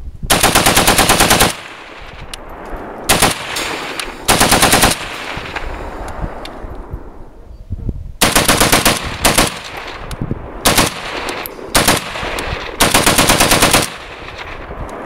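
Semi-automatic Romanian AK-47 in 7.62x39 bump-fired in bursts, its recoil working the trigger so it fires like full auto. There are about seven bursts of different lengths at roughly ten shots a second: the longest run over a second, and a few are only one or two shots. Each burst trails off in a fading echo.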